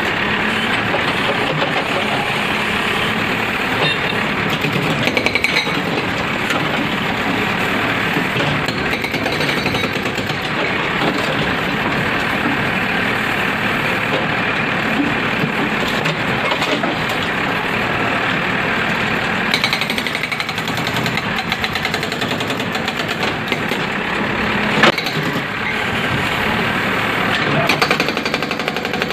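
Excavator-mounted hydraulic rock breaker hammering into a brick wall in a rapid, continuous pounding without pauses.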